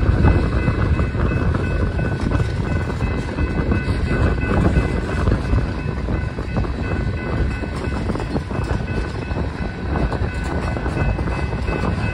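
Freight train of tank cars and covered hoppers rolling past: a steady rumble of steel wheels on the rails, with faint steady high tones over it.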